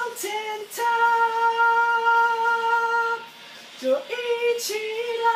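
A young man singing two long held notes on one pitch, each sliding up into the note, with short hissy breaths between them.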